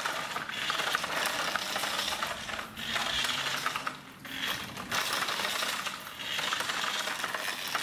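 Remote-control model dump truck driving over paving stones: a rattly, clicking whir from its small geared motor and wheels, in several runs broken by short pauses.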